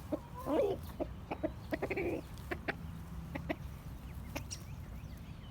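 Hens clucking, with a few short calls: one falling call about half a second in and another near two seconds, among many brief clucks.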